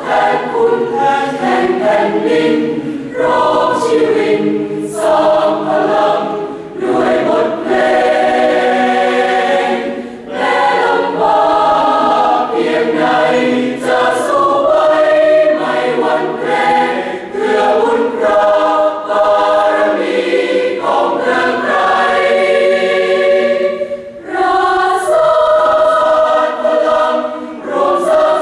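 Large mixed choir of men's and women's voices singing in harmony, with brief breaks between phrases about a third of the way in and again near the end.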